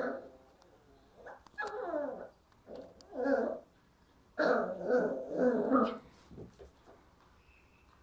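Puppy giving a string of short barks and whines, some falling in pitch. The longest and loudest run comes about four and a half seconds in and lasts over a second.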